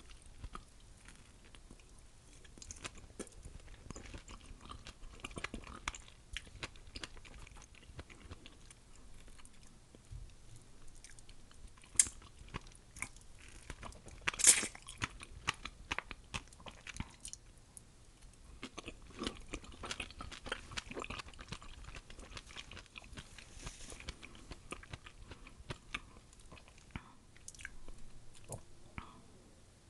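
Close-miked biting and chewing of ripe mango slices dusted with Tajín: soft, wet mouth sounds, with a few sharper clicks. The loudest click comes about halfway through.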